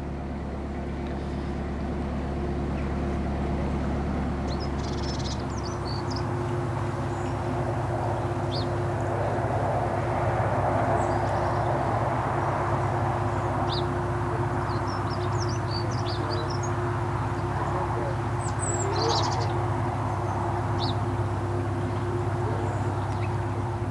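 Narrowboat diesel engine running steadily while under way, with birds chirping briefly now and then.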